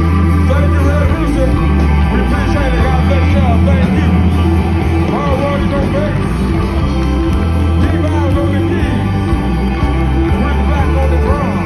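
Live electric blues band playing loud: a lead electric guitar bending notes over bass and drums.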